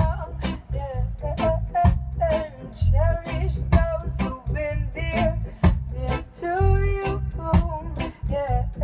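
Roots reggae band playing live: drum kit, electric bass, guitar and keyboard, with a heavy pulsing bass line, steady drum hits and a bending lead melody over the top.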